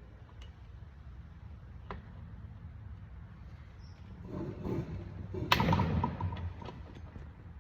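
Hand tools working on a 212 cc small engine: a cluster of clicks, taps and metal clatter from about four seconds in, with one sharp metallic knock about a second and a half later.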